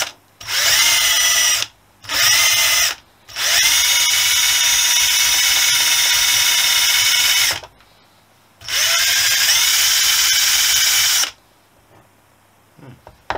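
Power tool spinning a brass wire wheel on an aluminium engine case to strip old paint. It runs four times, each start rising in a whine as it spins up, and the longest run lasts about four seconds.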